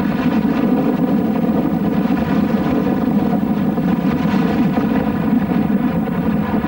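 An engine running steadily at a constant speed: a loud, even drone with a strong pitched hum that does not change.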